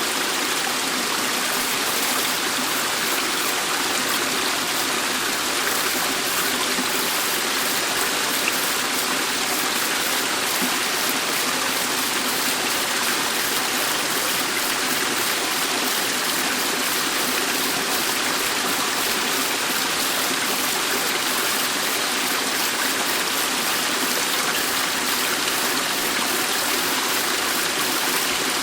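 Dettifoss waterfall rushing: a steady, even wash of falling water that stays at the same level throughout, mostly in the middle and upper range with little deep rumble.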